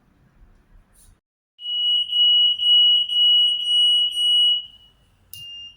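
EAS anti-theft gate alarm (AM 58 kHz security pedestal) sounding: a loud, high single-pitched beep pulsing about twice a second, starting about one and a half seconds in and stopping after about three seconds. It starts again more quietly near the end. The alarm is the gate's signal that a security tag has been detected between its antennas.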